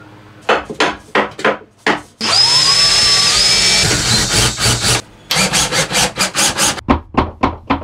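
Cordless drill spinning up and drilling into wood for about two seconds, its motor whine rising in pitch as it speeds up. Quick scraping strokes on wood come before and after it.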